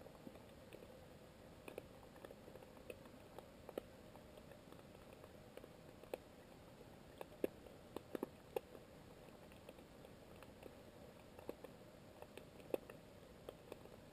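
Underwater ambience: a steady low hiss with a faint hum, dotted with irregular soft clicks and crackles, a cluster of sharper ones a little past the middle.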